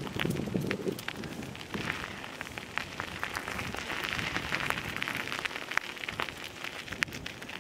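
Footsteps crunching on a gravel path, a crackly hiss with many irregular sharp clicks.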